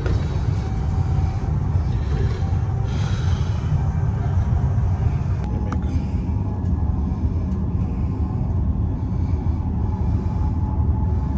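Steady low rumble of a Chinese high-speed bullet train running at speed, heard inside the carriage, with a faint steady hum above it. Two short clicks come about halfway through.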